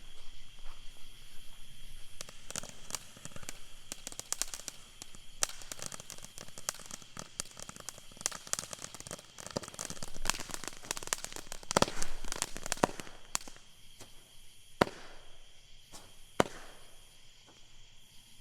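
A consumer firework going off with a dense run of rapid crackling pops for about ten seconds, thinning out to three or four single, sharper pops near the end.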